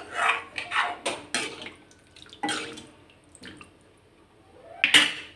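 Water poured into a kadai of potato-and-masala gravy, splashing in a few uneven gushes, the loudest near the end. The water is added so the potatoes soften.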